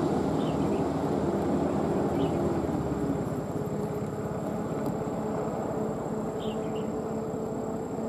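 Steady engine hum that slowly fades, with a few short high bird chirps about half a second, two seconds and six and a half seconds in.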